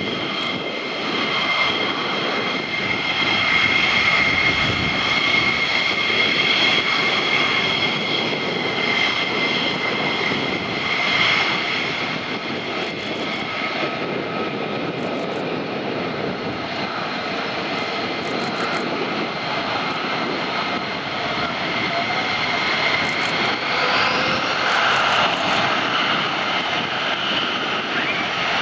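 F-15 fighter's twin jet engines running steadily at taxi power: a high whistling whine over a continuous rushing noise. A few seconds before the end, the whine glides up in pitch.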